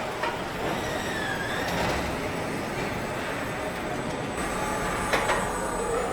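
Car assembly-line machinery running: a steady mechanical noise with a whine that dips and rises about a second in, and a sharp click near the end.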